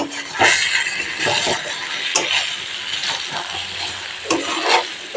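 Spatula stirring and scraping chicken and fried potatoes round a metal kadai, with short scraping strokes and knocks against the pan over a steady sizzle. The masala has been dry-fried (kosha) for about 20 minutes, until the oil separates at the sides.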